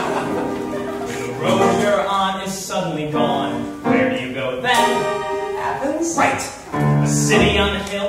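A musical theatre number: male voices singing, partly in a speech-like delivery, over a small pit orchestra.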